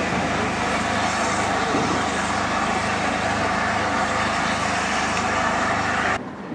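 Aveling & Porter geared steam locomotive moving slowly along the track, a steady hiss and mechanical running noise with a low, even drone underneath; it cuts off suddenly about six seconds in.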